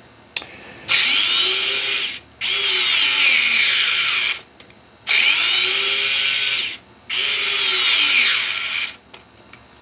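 Vessel cordless ball-grip screwdriver driving a long wood screw into raw wood with no pilot hole, run in four short bursts. Its motor whine rises and sags in pitch under the load as the screw gets tight.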